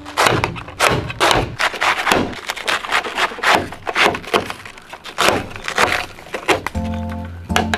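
Hatchet chopping a whole head of cabbage on a metal plate: a rapid, irregular series of sharp chops, about two or three a second.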